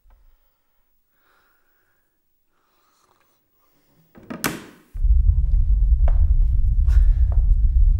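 A wooden cupboard door knocks softly shut, then near silence. About four seconds in a rushing whoosh swells up and gives way to a loud, steady deep rumble: the sound effect of being sucked through the portal.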